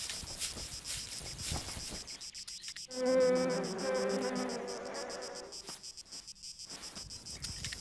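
Insects chirping steadily in a high buzz, and about three seconds in a loud, drawn-out animal call held at a steady pitch in two parts, which the men take for some woolly demonic monster.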